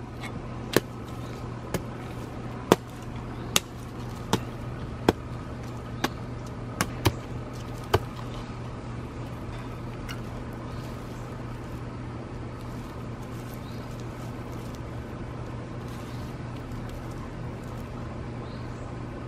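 A steady low machine hum runs throughout. About ten sharp clicks or taps come at irregular intervals over the first eight seconds, then only the hum remains.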